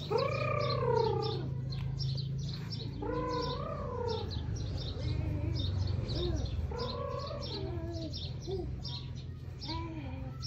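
A dog whining: a series of drawn-out whimpers, each rising and then falling in pitch, about five or six in a row.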